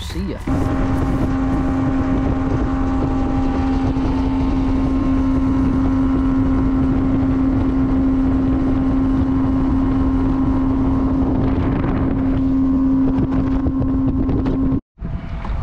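Yamaha 50 outboard motor running steadily at planing speed, with one even engine tone over the rush of the hull and wind buffeting the microphone. It cuts off suddenly near the end.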